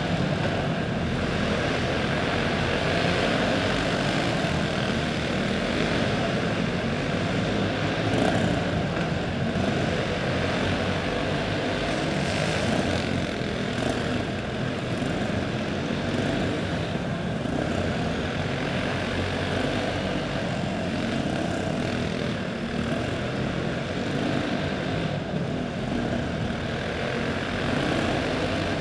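Several dirt-track racing karts with single-cylinder four-stroke clone engines running at race speed, making a steady, overlapping buzz as the pack laps the track.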